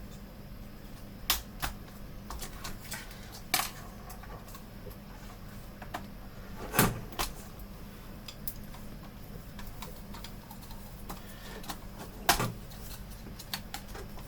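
Scattered sharp clicks and knocks as monitor parts are handled and fitted back together during reassembly, the loudest about seven seconds in and again near twelve seconds, over a steady low hum.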